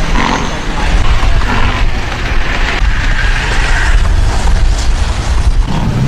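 Loud, unsteady low rumble of outdoor noise, with indistinct voices now and then.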